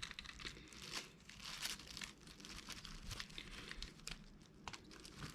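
Faint small clicks and scrapes of a screwdriver backing small screws out of an old mobile phone's plastic casing, with light handling of the phone.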